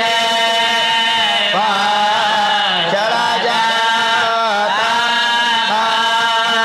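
A man's voice chanting a marsiya (Urdu elegy) in long, drawn-out melodic lines, the notes held and bending slowly in pitch.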